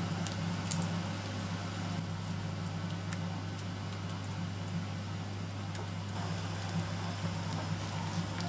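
A steady low hum, with a few faint short clicks and dabs as a silicone pastry brush spreads sour cream over a whole baked carp on a wire rack.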